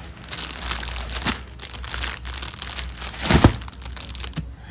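Toy packaging being handled and torn open: irregular crinkling and rustling, with a louder rip about three and a half seconds in.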